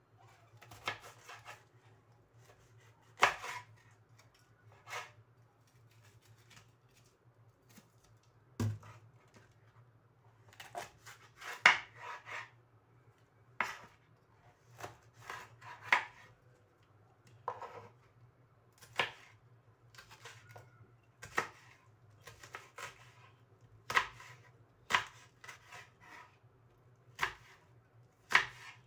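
Kitchen knife slicing a large red chili on a plastic cutting board, each cut ending in a sharp knock on the board. The knocks come irregularly, singly and in short clusters every second or two.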